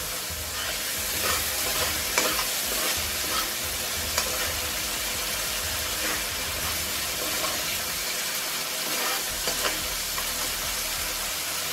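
Coriander and green chilli paste sizzling in hot mustard oil in a metal kadai as a steel spoon stirs it, with a few light clicks of the spoon against the pan.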